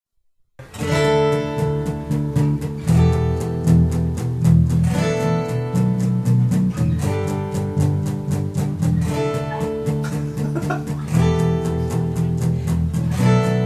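Instrumental intro of a song: a guitar strummed in a steady rhythm, with the chord changing about every two seconds. It starts about half a second in.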